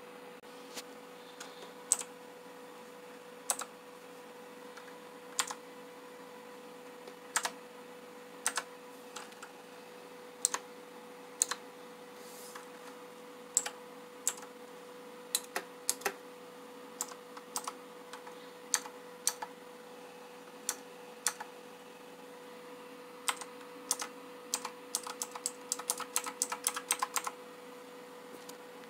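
Rizum Z15 mechanical keyboard with clicky optical blue switches: single keystrokes a second or two apart, then a quick run of rapid keystrokes near the end.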